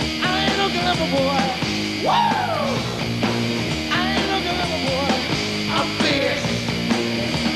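Live rock band playing loud, with electric guitar, bass and drums under a male lead voice that slides up and down in pitch, including one long swoop up and back down about two seconds in.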